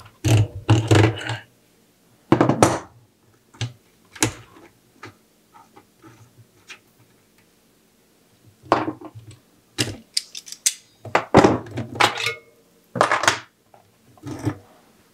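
Metal tools clanking on a bicycle cassette: an adjustable wrench on a lock ring tool breaks the lock ring loose while locking pliers and a wrapped chain hold the cogs, then the tools and steel cogs knock together as they come off the hub. The clanks come in about eight short, irregular bursts with quiet gaps between them.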